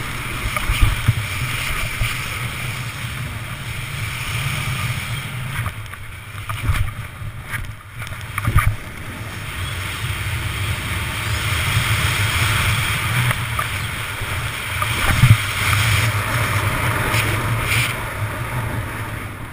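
Snowboard sliding and carving over groomed, hard-packed snow, a steady scraping rush mixed with wind buffeting the microphone, broken by a few sharp thumps.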